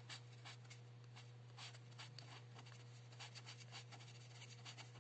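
Felt-tip marker writing on paper: faint, quick scratchy strokes as a word is written out. A steady low hum sits underneath.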